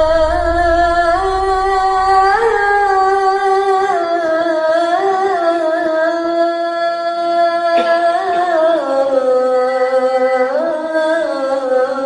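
A melodic chanting voice holding long, drawn-out notes that slowly waver and step between pitches, with a low rumble under the first few seconds.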